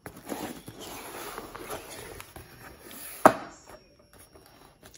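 Cardboard mailer box being opened by hand: rustling and scraping of the card, with one loud, sharp snap a little past three seconds in as the lid comes free.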